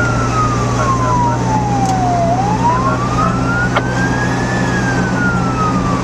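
Fire department siren on a slow wail, one tone rising and falling over several seconds, over the steady low drone of the vehicle on the road. It signals an emergency run to a possible working fire.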